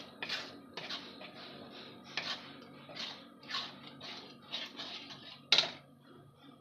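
A wooden spatula stirs and scrapes a thick tomato-onion masala frying in a non-stick kadhai, in repeated strokes about every half second to a second, the last stroke near the end the loudest. The masala is being fried until the raw tomato is cooked out.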